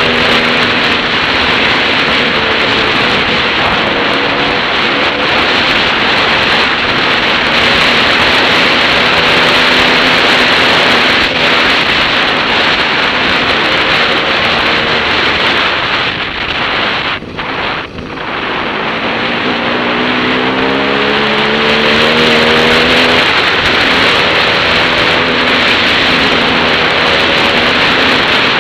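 Heavy wind noise over a helmet-mounted camera on a moving dirt bike, with the bike's engine note underneath. About two-thirds of the way through, the wind dips briefly, then the engine note climbs as the bike picks up speed.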